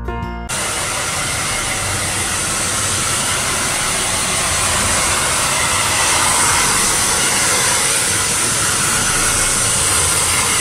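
Wahl handheld hair dryer blowing steadily close to a wet dog's coat, an even rushing hiss from about half a second in.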